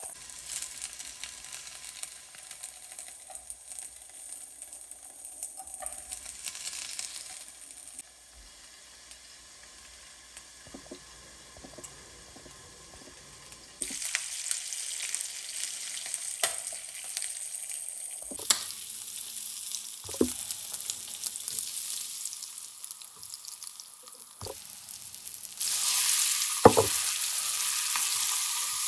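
Food sizzling as it fries in a hot pan, with a few knocks of a utensil. The sizzle drops away for several seconds in the middle, comes back, and is loudest near the end.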